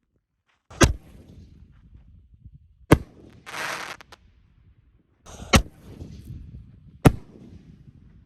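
Four sharp firework bangs, about one and a half to two and a half seconds apart, each with a short echoing tail, and a brief hiss between the second and third.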